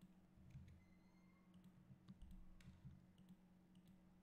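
Near silence: faint scattered clicks of a computer mouse and keyboard over a low steady hum.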